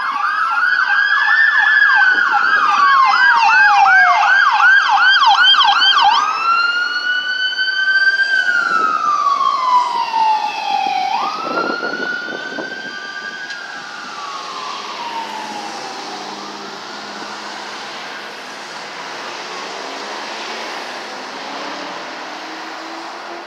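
LAFD rescue ambulance siren: a fast yelp over a slow rising-and-falling wail, then the wail alone after about six seconds, sliding lower in pitch and fading away as the ambulance drives off. Steady traffic noise remains near the end.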